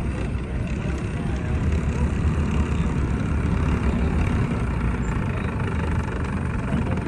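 M29 Weasel tracked carrier driving fast on a dirt track, its Studebaker Champion six-cylinder engine running steadily under load with the rumble of the tracks.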